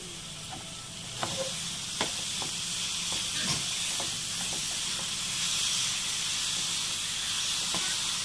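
Chopped vegetables sizzling in oil in a steel frying pan, with the clinks and scrapes of a steel ladle stirring them. The sizzle grows louder about a second in, as the stirring starts.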